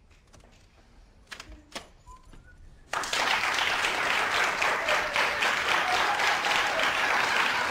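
Two short sharp knocks, then about three seconds in a studio audience suddenly breaks into applause that keeps going.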